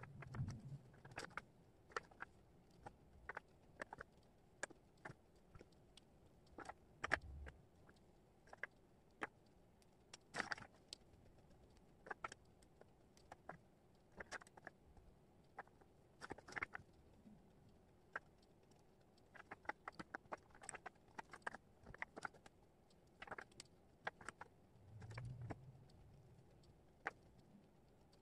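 Wooden jigsaw puzzle pieces clicking and tapping against each other and the cork board, irregularly, as they are picked up and set down by hand. There are a few soft low thumps, and the loudest click comes about seven seconds in.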